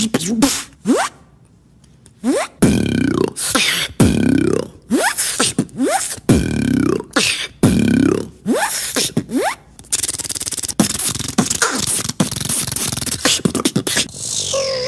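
A beatboxer making sound effects with the mouth: quick falling pitch sweeps, then after a short pause a string of repeated swooping, rising-and-falling tones cut by sharp clicks, and in the last few seconds a fast, dense rattle of clicks.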